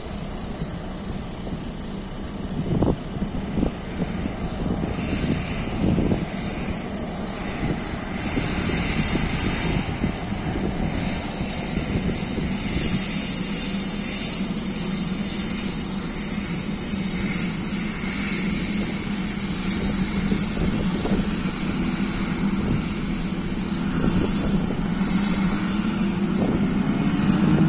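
Embraer A-29 Super Tucano's single turboprop engine running as the aircraft taxis along the runway: a steady drone with propeller hiss, growing slowly louder toward the end. A couple of brief knocks come about three and six seconds in.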